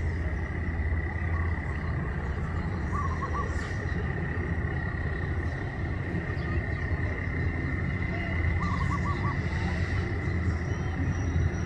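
Outdoor ambience: a steady low rumble under a constant high, thin whine. An animal call of four quick notes comes twice, about three and nine seconds in.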